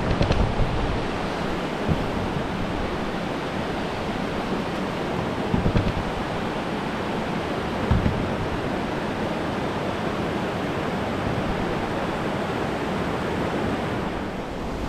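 Steady rush of water pouring over a wide, sloping river weir, with a few low thumps.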